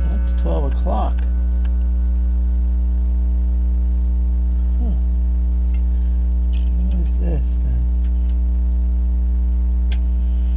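Loud, steady electrical mains hum with a ladder of overtones, the ground-loop hum of an AC-powered camcorder with a microphone that isn't grounded. There is a single sharp click near the end.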